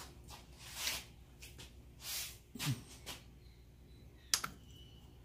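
Handling noises as a dial test indicator is brought up to the lathe: a few soft swishes and rustles, then one sharp click about four seconds in, over a low steady hum.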